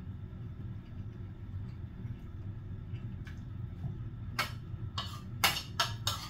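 Eating noises from a person eating hotpot: a quick run of five short, sharp sounds starting about four and a half seconds in, over a steady low background hum.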